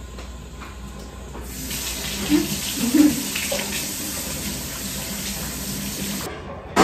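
Kitchen sink faucet turned on about a second and a half in, water running steadily into the sink, then shut off near the end. A couple of knocks sound under the running water.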